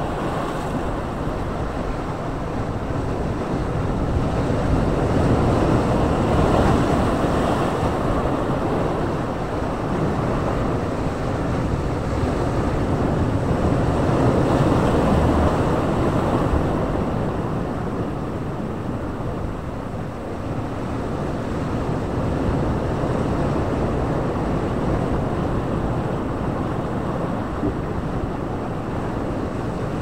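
Sea waves breaking and washing over rocks along the shore: a continuous rushing surf that swells louder twice, about five and fifteen seconds in.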